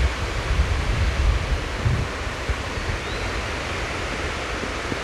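Steady rush of a mountain stream's flowing water, with low wind rumble on the microphone in the first two seconds.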